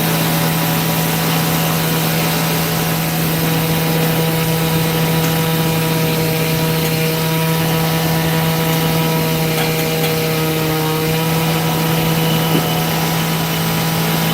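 Power saw running steadily and cutting stone, loud and continuous, with a constant hum and fainter steady higher tones over a hiss.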